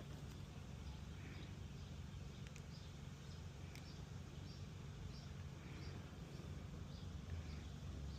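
Faint outdoor background: a steady low hum with small birds chirping now and then, and a couple of faint clicks.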